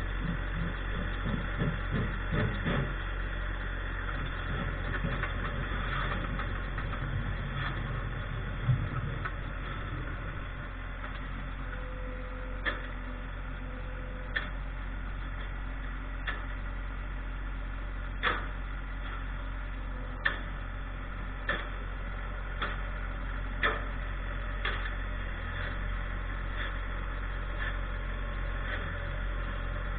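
Tractor engine running steadily, with a series of sharp knocks every second or two through the second half.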